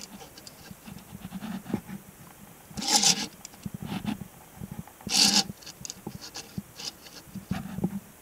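Diecast model car handled and turned on a wooden tabletop: light rubbing and small clicks, with two short hissing bursts about three and five seconds in.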